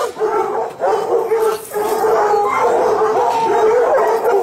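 A large pack of hounds, crowded together and excited at feeding time, baying and yelping at once in a continuous overlapping chorus of many voices.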